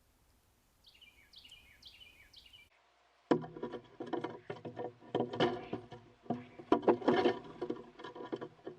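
A bird gives a quick series of about five short, downward-sliding call notes. After about three seconds, loud irregular knocking and scraping on wood close to the microphone takes over.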